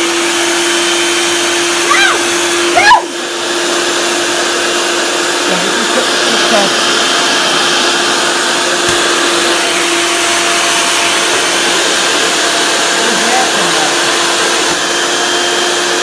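1977 Hoover Celebrity Deluxe S3001 canister vacuum cleaner with an 1150-watt motor, running steadily: a constant hum under a loud rush of air.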